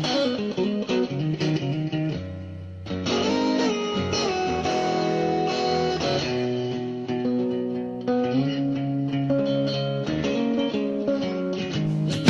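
Background music: an electric guitar playing held notes and chords over a bass line.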